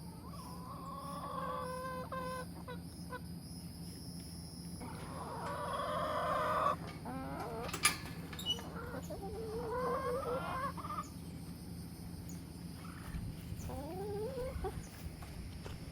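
Chickens clucking and calling in several separate bouts, some calls rising in pitch, with a sharp click about eight seconds in.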